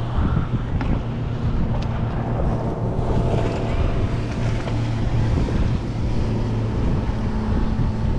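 Strong wind buffeting the microphone on an open boat, with water lapping against the hull and a steady low hum underneath.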